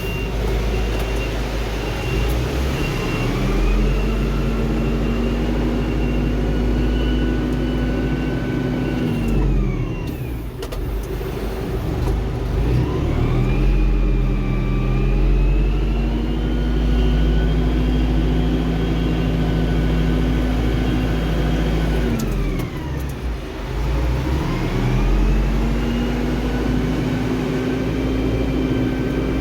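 Tractor engine rolling a silage clamp, heard up close. It revs up, holds high revs for several seconds, then drops back, three times over: once near ten seconds in and again a little before twenty-four, with a steady low rumble underneath.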